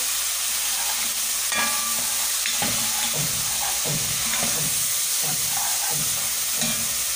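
Onions and ginger-garlic paste sizzling in hot oil in an aluminium pot, stirred with a plastic spatula. A little water is poured in partway through, and the steady frying hiss carries on, with regular stirring strokes about twice a second in the second half.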